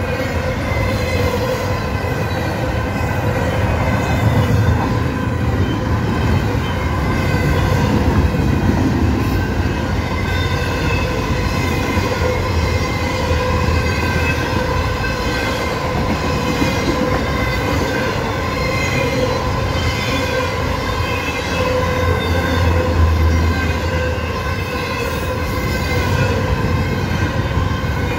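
CSX double-stack intermodal freight train rolling past at speed: a continuous rumble and clatter of wheels on rail, with a steady high ringing tone over it.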